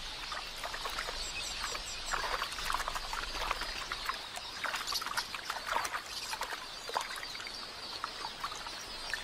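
Splashing and churning in shallow water as helmeted terrapins seize quelea, with high squeaking and chirping from the birds.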